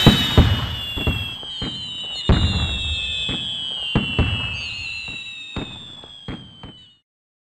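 Fireworks: about eight sharp bangs spread over several seconds, with high whistling tones slowly falling in pitch, fading overall and cutting off suddenly near the end.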